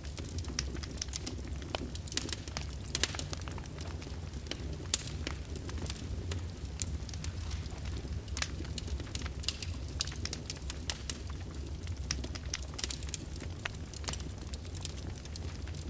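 Fire in a fireplace crackling, with frequent irregular sharp pops and snaps over a steady low rumble.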